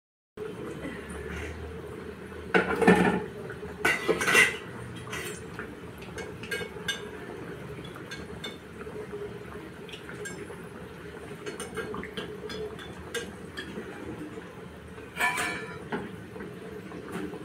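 Chana dal vadas deep-frying in oil in a metal kadhai, a steady bubbling hiss throughout. A metal slotted spoon clatters and scrapes against the pan as the vadas are turned and lifted, loudest about three and four seconds in and again near the end.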